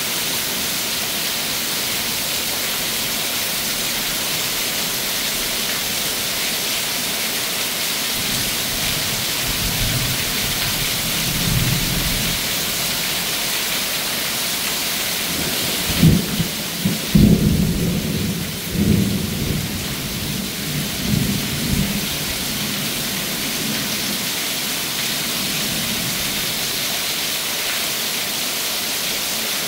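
Thunderstorm downpour: heavy rain falling steadily and pouring off a screened pool-enclosure roof. Thunder rumbles low about a third of the way in, then a loud crack a little past halfway breaks into a rolling rumble that dies away after several seconds.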